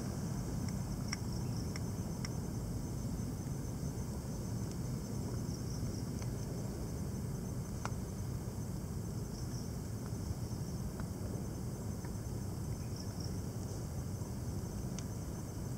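Steady outdoor ambience: a low constant rumble with a faint, high, insect-like trill over it and a few soft scattered clicks.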